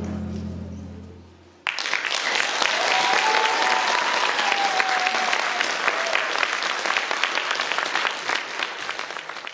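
The last held notes of the dance music fade away, then about a second and a half in an audience breaks into applause. A long call from one voice carries over the clapping for a few seconds, and the clapping thins toward the end.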